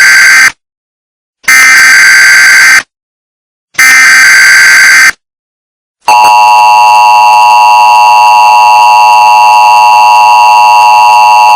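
Emergency Alert System signal, very loud: the end of one harsh digital data burst and two more, each about a second long with a silent gap between, then about six seconds in the steady two-tone attention signal begins and holds. This is the header and alert tone that opens an emergency broadcast message.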